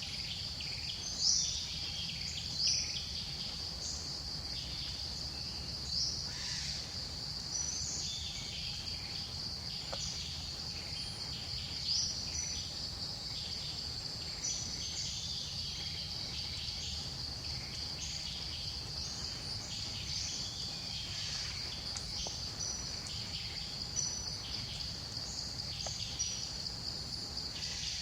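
Steady high-pitched insect drone, such as cicadas or crickets, with short bird chirps repeated every second or two over a low background rumble.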